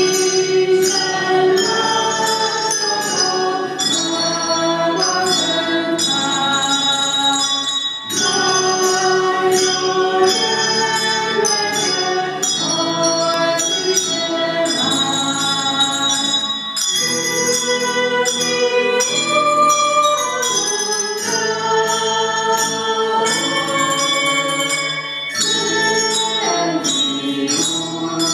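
A handbell ensemble playing a piece of music, many bells struck in turn and left ringing together as chords.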